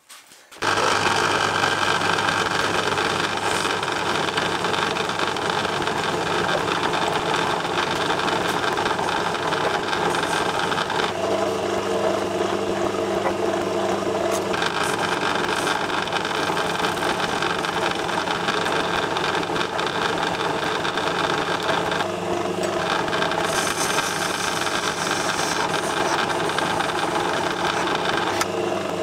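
Small metal lathe running steadily, its motor and spindle gearing giving a constant hum with a light rattle while a short rod is turned down in the collet chuck. A hiss joins it for a few seconds near the end.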